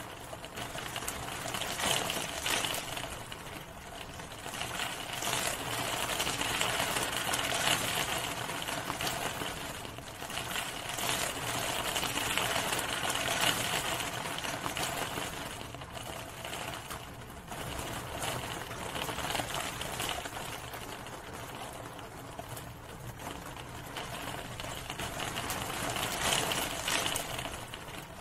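Steady rain falling, a dense patter that swells and eases every few seconds.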